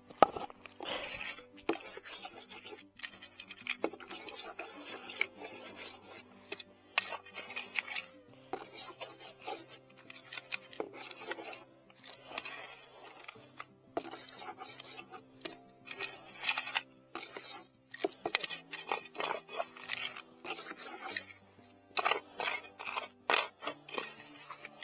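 Repeated scraping and rasping of stony soil as a target is dug out and the dirt raked over, with faint steady low tones shifting in pitch underneath.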